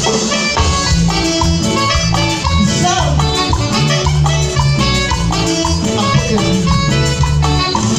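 Live cumbia band playing: a pulsing bass line under a repeating keyboard melody, with electric guitar and Latin percussion.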